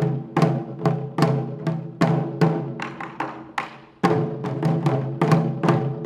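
Taiko drumming: a rope-laced drum with an orange bucket body struck with wooden bachi in a steady beat of about two and a half strokes a second, each stroke leaving a low pitched ring. The beat pauses briefly just before four seconds in, then a hard stroke starts it again.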